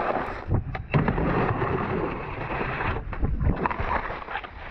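Skis sliding and scraping over snow, with wind noise on the microphone and a few sharp knocks in the first second.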